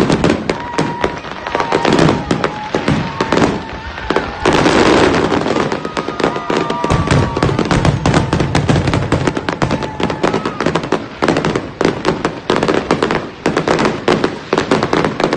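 Fireworks grand finale: a rapid, unbroken barrage of aerial shell bangs and crackling.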